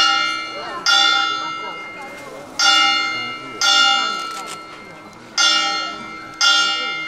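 A large metal monastery bell struck six times in three pairs, the two strokes of each pair about a second apart. Each strike rings on with a bright, many-toned hum that fades slowly. It is the call to the monks lined up for their meal.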